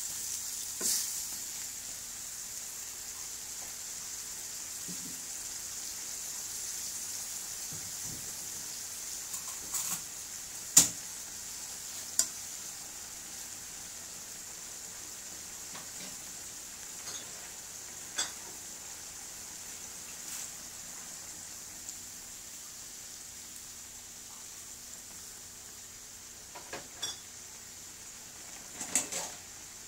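Chicken adobo sizzling in its sauce in a wok: a steady high hiss that slowly fades, broken by a few sharp clicks and pops, the loudest about eleven seconds in.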